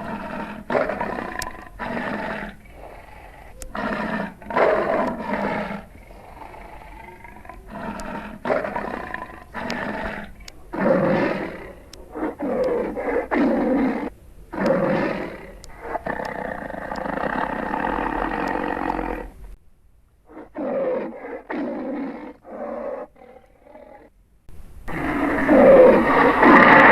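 Dragon creature sound effects: a series of roars and growls, mostly under a second each, with one longer steady roar around the middle. Loud music with distorted guitar comes in near the end.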